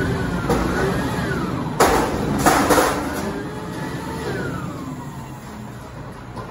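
White GMC WX64 garbage truck's diesel engine revving up and down, its pitch rising and falling in slow swells. There are two short, loud noisy bursts about two seconds in, and the sound eases off toward the end.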